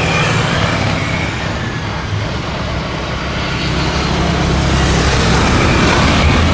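Jet airliner engines running with a steady low hum and broad rushing noise that grows louder in the second half.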